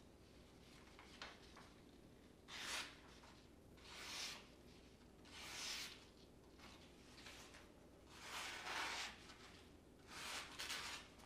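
Freshly sharpened SOG folding knife slicing down through a sheet of paper held in the air, a paper-cutting test of the edge. About five short papery swishes, with a fainter one before them.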